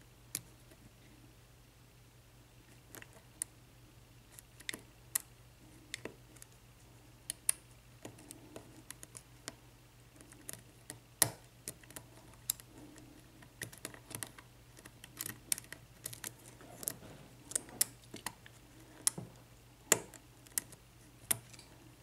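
Lock pick clicking and scraping against the pin stacks of a Sargent six-pin padlock under tension during single-pin picking: a scatter of small, irregular clicks that come more often in the second half.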